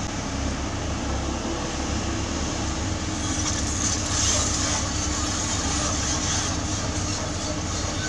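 Diesel engine of a JCB JS205 tracked excavator running steadily under working load: a low rumble with a steady hum, and a hiss that swells about halfway through.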